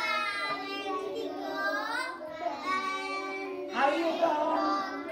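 A group of young children singing a song together, with notes held and sliding between pitches and short breaths between phrases.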